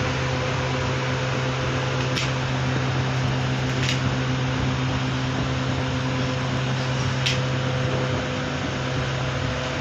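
Mumbai suburban electric train, heard as a steady rushing noise with a constant electric hum, broken by three brief sharp clicks.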